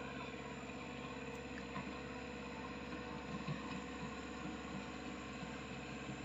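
Mini excavator's diesel engine running steadily and faintly at a distance as the machine tracks through deep water.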